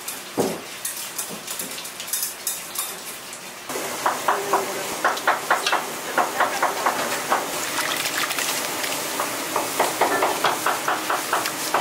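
Thick flour paste bubbling and popping in a pan. About four seconds in, the sound cuts to a stainless steel mixing bowl, where short scraping clinks of a utensil repeat over a steady hiss as chili paste and other seasonings go in.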